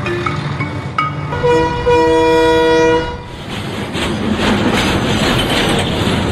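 A train horn blows one loud held chord for nearly two seconds. It is followed by the steady rumble and clatter of a train running past.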